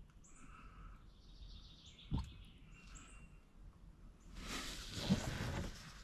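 Quiet outdoor background with a few faint high bird chirps, one sharp knock about two seconds in, and a rushing hiss that rises near the end.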